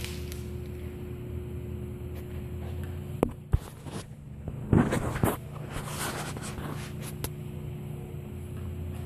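A cat's paws and claws skittering and tapping on a hard tile floor as it pounces after a wand toy: two sharp taps a little over three seconds in, then a brief scrambling scuffle around five seconds. A steady low hum lies underneath.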